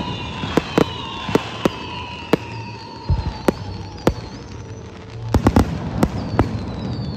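Fireworks going off: a scattered string of sharp bangs, thickest about five and a half to six and a half seconds in, with high whistles gliding in pitch from the shells.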